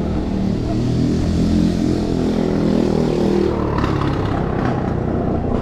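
Street traffic heard from a moving electric scooter: a vehicle engine running close by, with a few clattering knocks about two-thirds of the way in.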